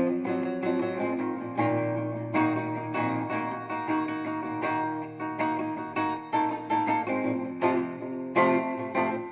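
Guitar played solo, a quick run of picked notes over lower notes left ringing.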